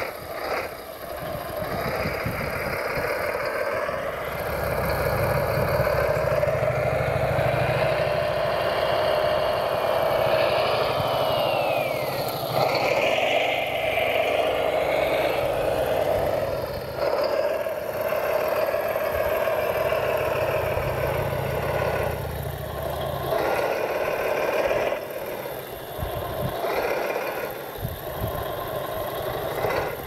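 RC Volvo L250G scale wheel loader working its bucket, with a steady motor and engine hum that wavers in pitch as it loads. A deeper rumble runs through the middle, and a whine glides up and back down about halfway through.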